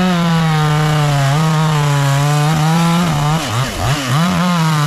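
Two-stroke chainsaw running at high speed, its pitch dipping and recovering several times between about three and four and a half seconds in.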